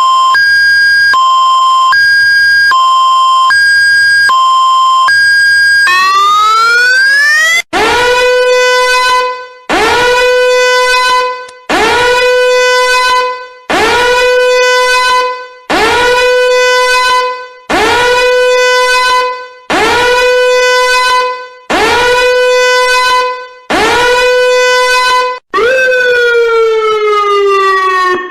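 Electronic emergency-vehicle siren running through several patterns. It opens with a two-tone hi-lo alternation, about one high-low cycle a second. About six seconds in it switches to a rising wail, followed by about nine short blasts, each rising quickly to a held tone and fading, roughly one every two seconds. It ends with a long falling glide.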